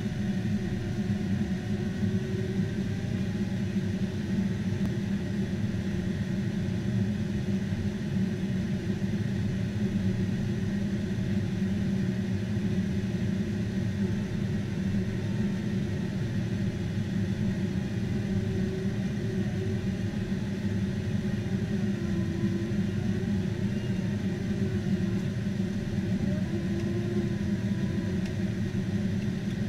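Steady low rumble of a KC-10 Extender tanker in flight, engine and airflow noise heard from inside the aircraft, with faint tones that slowly rise and fall.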